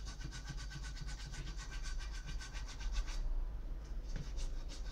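Rapid back-and-forth scraping of an abrasive against the aluminium-to-copper refrigerator tube joint, cleaning the metal so the solder will bond. The strokes come quickly and evenly, ease off briefly a little past the middle, then resume.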